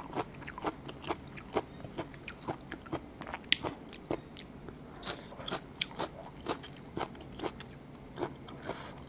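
A person eating raw blue swimmer crab salad close to the microphone: a steady run of short, wet bites, chewing smacks and small crunches, about two or three a second.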